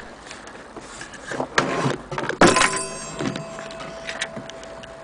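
A single strike on an antique German Vienna wall clock's gong, a sharp hit whose ringing tone lingers for several seconds. It follows a moment of rubbing and knocking from handling.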